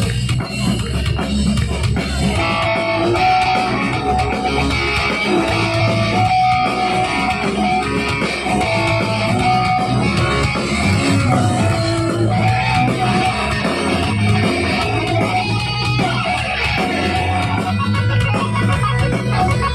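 Live rock band playing: electric guitar leads with long held melody notes over bass guitar and drum kit.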